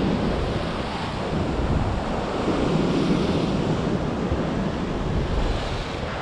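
Ocean swell surging and breaking against a rock ledge below, a steady wash of surf with no single crash standing out, mixed with wind buffeting the microphone.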